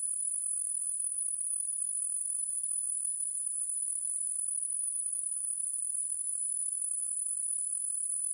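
Insects, crickets or similar, trilling steadily in a continuous high-pitched chorus, with faint soft rustles in the middle.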